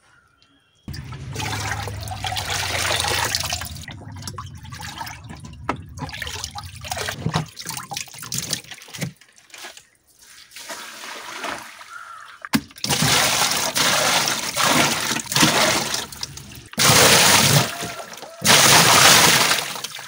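Water splashing and pouring in an old refrigerator box used as a fish tank, as its murky water is emptied and fresh water is poured in. It comes in several bouts with short breaks, the loudest and longest pours in the second half.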